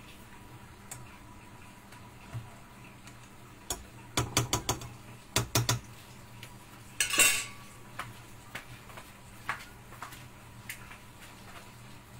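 Metal kitchenware clinking and clattering: a quick run of sharp clinks about four seconds in, a longer, louder clatter around seven seconds, then scattered lighter clinks.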